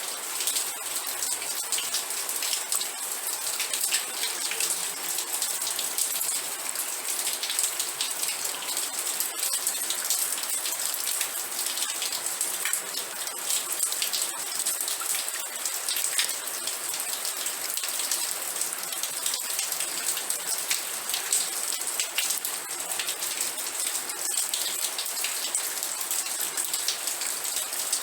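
Steady rain falling, a dense hiss of water with many small drop hits ticking through it.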